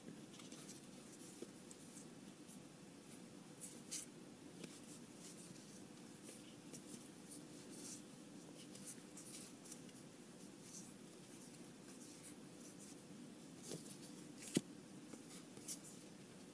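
Trading cards being handled by hand: soft slides and light clicks as cards are flipped, fanned and shifted between stacks, with one sharper click near the end, over a faint steady hum.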